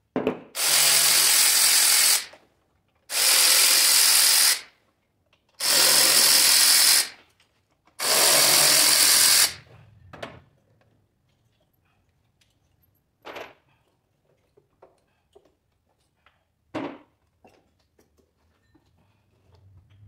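Cordless power tool spinning out the ignition-coil hold-down bolts on a Ford 4.6 V8: four steady motor whines of about a second and a half each, followed by a couple of light knocks as parts are handled.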